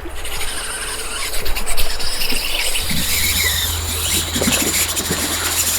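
Fishing reel drag buzzing continuously as a hooked king salmon strips line, starting suddenly and running with a wavering high-pitched whine.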